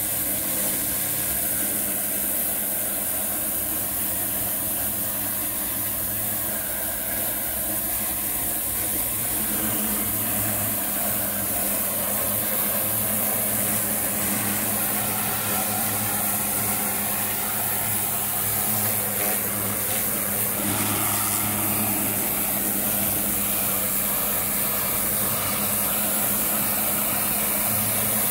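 Pressure washer running steadily with a steady motor-and-pump hum, while its rotary turbo nozzle sprays a hissing jet of water against a brick wall.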